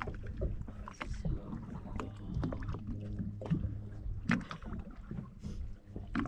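Motorboat running with a steady low engine hum over a wash of water and wind noise, broken by scattered short knocks.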